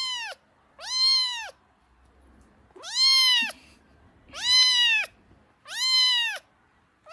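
A kitten meowing repeatedly: five high-pitched meows, each rising then falling in pitch, about one every second and a half.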